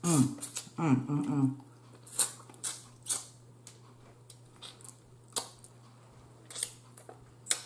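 Close-up mouth sounds of a person eating crab: scattered sharp wet smacks and clicks of lips and fingers as she chews and licks crab meat off her fingers, over a steady low hum.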